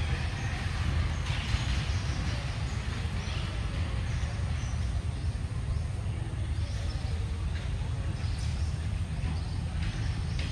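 Outdoor background noise: a steady low rumble with a fainter hiss above it.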